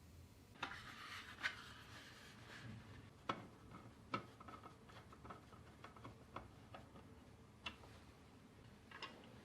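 Faint, scattered light clicks and taps of computer parts and packaging being handled, with a short rustle about a second in.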